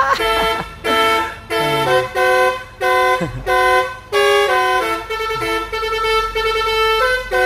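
A lorry's musical 'telolet' air horn playing a tune of held notes that step up and down in pitch: separate phrases about a second long at first, then an unbroken run of quicker note changes from about four seconds in.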